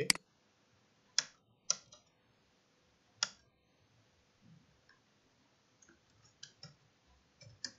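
Computer mouse and keyboard clicks: four sharp, separate clicks in the first three seconds or so, then a run of softer keystrokes from a keyboard being typed on over the last few seconds.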